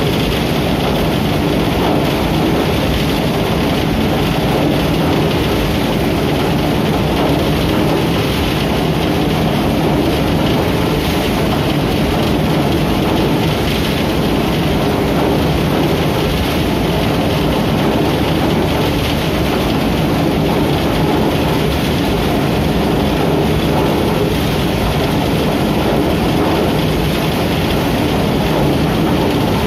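Shaftless threshing machine running steadily under load, straw and crop heads churning through its rotating wire-mesh drum with a loud, unbroken mechanical noise.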